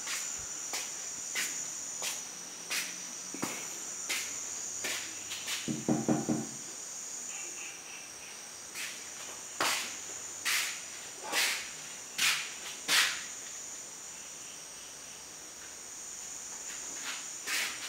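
Crickets chirring steadily at a high pitch, fading out partway through and coming back near the end, with footsteps landing on a hard floor every second or so. About six seconds in there is a brief low hum of a voice.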